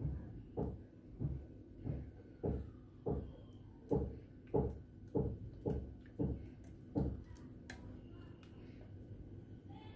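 A silicone spatula scraping thick custard-like cream filling out of a stainless steel pot onto a kunafa base, a dull thud with each stroke, about one and a half strokes a second. The strokes stop about seven seconds in.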